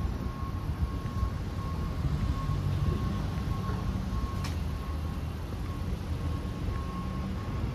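City street traffic: a steady low rumble of passing vehicles, with a faint high tone cutting in and out and a single sharp click about four and a half seconds in.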